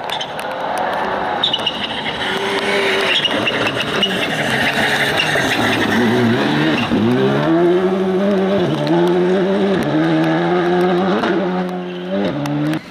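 Škoda Fabia Rally2 car's turbocharged four-cylinder engine revving hard on a gravel stage, its pitch rising and then dropping sharply at each gear change and lift, with the tyres scrabbling on loose gravel.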